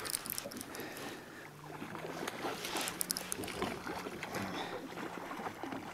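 Faint scattered ticks and clicks over a steady low hum, the small working sounds of a fishing boat as a line is reeled in.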